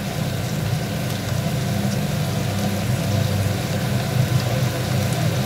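A steady low mechanical hum, with a faint sizzle of ground cumin frying in the pan.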